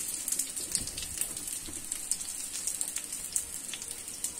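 Oil sizzling in a pan as pieces of steamed masoor dal batter shallow-fry with mustard seeds and curry leaves, a steady hiss with scattered crackles.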